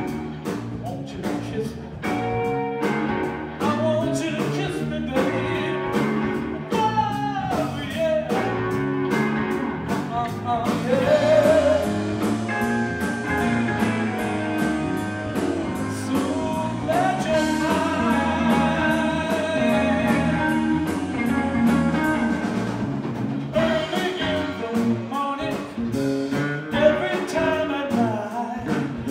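Live blues-rock band playing through a PA: electric guitars, bass and drums with singing. The guitar lead has bent, gliding notes.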